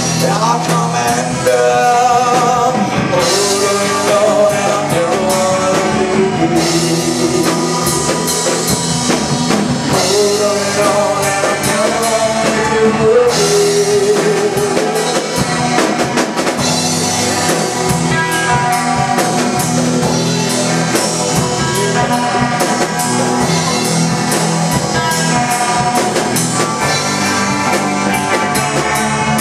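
Rock song with a sung vocal over drum kit and guitar, the voice most prominent in the first half.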